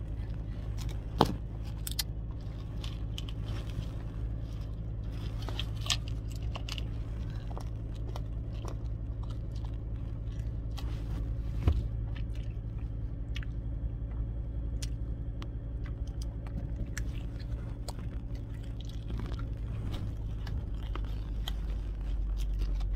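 Chewing and crunching on sour Warheads candy, with scattered short clicks, over the steady low hum of a car.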